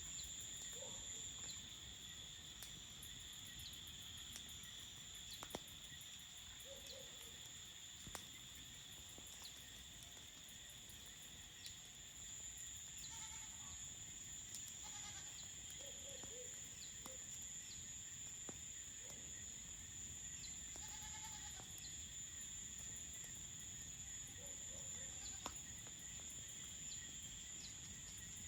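Crickets chirring steadily in a high continuous trill, with a few short goat bleats now and then and small scattered crackles of a campfire.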